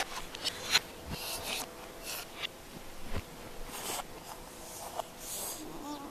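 Scattered light knocks, clicks and rustles of a toddler moving about and handling toys, played backwards, with a brief child's vocal sound near the end.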